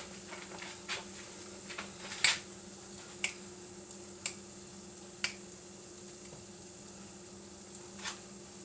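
Corned beef frying in a pan with a faint steady sizzle, while a utensil knocks against the pan in sharp clicks roughly once a second as the meat is flipped, the loudest about two seconds in. A steady low hum runs underneath.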